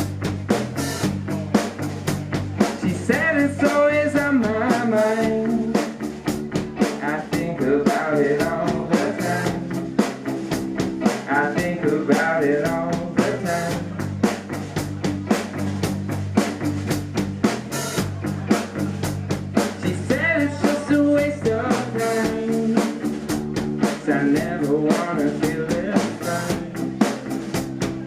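Rock band playing a song: a steady drum-kit beat with electric guitar, and a singer's voice coming in and out in phrases.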